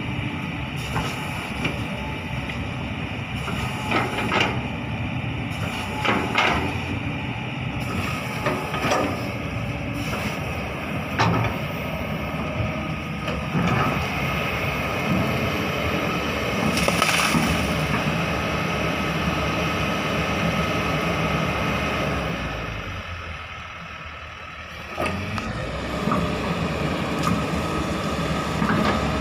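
Kobelco SK200 hydraulic excavator's diesel engine running under load, with scattered sharp knocks and clanks. The engine eases off briefly about two-thirds through, then picks up again.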